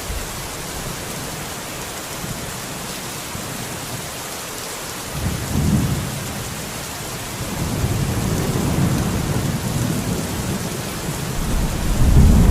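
Steady rain hissing, with a low rumble of thunder coming in about five seconds in and swelling louder near the end.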